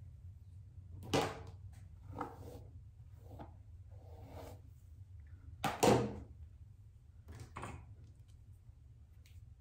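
A handful of short, separate thuds and rustles, the loudest about a second in and just before six seconds in.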